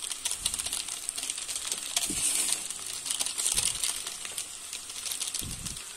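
Plastic-foil seasoning sachet crinkling as it is squeezed and shaken over the pan to sprinkle out masala powder. The crinkling comes in stronger spells about two and three and a half seconds in, over a steady sizzle from the frying noodles.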